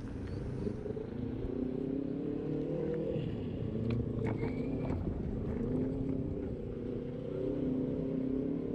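Traffic and vehicle motor hum on a road, with several pitches gliding slowly up and down over a low rush of wind and road noise. A short high beep sounds about four seconds in.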